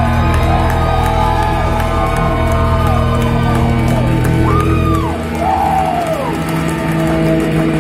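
A live band holds a ringing chord with a deep low drone that drops out about five seconds in, while the crowd whoops and yells over it.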